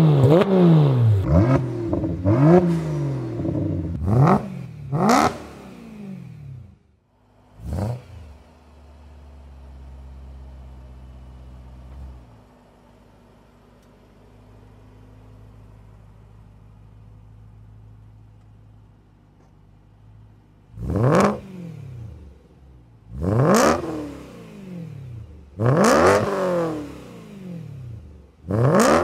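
Porsche 991.1 GT3 RS flat-six revving in repeated rises and falls. After a short break, a 2013 BMW E92 M3's V8 through a Dinan catless exhaust runs quietly and steadily at low revs, then, about two-thirds of the way in, revs hard in several loud pulls that climb and drop in pitch.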